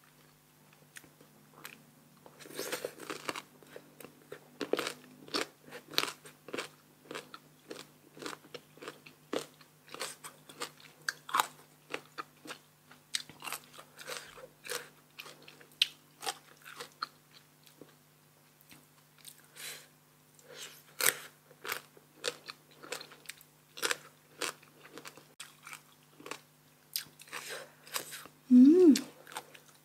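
Crisp, sour green mango being bitten and chewed, with a quick run of sharp crunches throughout. A brief voiced sound comes near the end.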